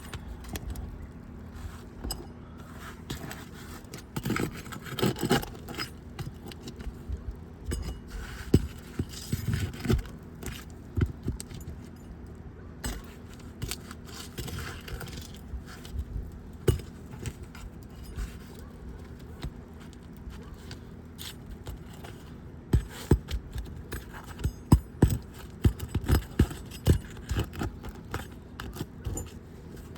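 A tool scraping and tapping on asphalt shingles as their sealed tabs are pried apart, in irregular sharp clicks and scrapes. The clicks bunch together about five seconds in and again near the end.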